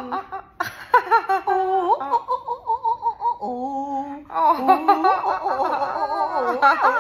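Two women laughing and giggling in high, wobbling voices, a quick run of ha-ha-ha pulses in the middle, and both voices overlapping near the end.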